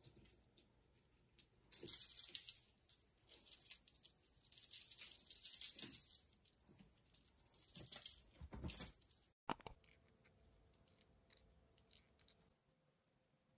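A kitten's toy jingling and rattling as the kitten bats and chases it across the floor, in two long spells with a brief break, stopping about nine seconds in.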